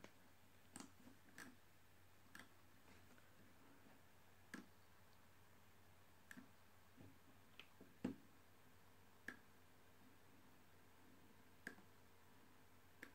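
Near silence broken by a dozen or so faint, sharp clicks at irregular intervals: the clicks of a laptop being used to page from one image to the next.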